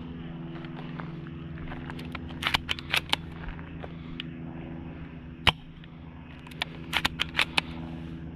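Snow Wolf Mauser Kar98k spring airsoft rifle with upgraded internals: the bolt is worked in a quick run of clicks, a single sharp shot comes about five seconds in, and the bolt is cycled again in another run of clicks soon after.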